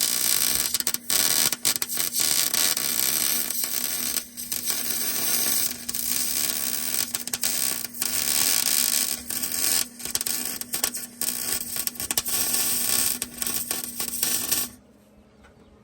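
MIG welder laying a weld bead on a steel muffler hanger: a steady, loud crackling sizzle of the arc with brief sputtering breaks, over a steady hum. It stops abruptly near the end.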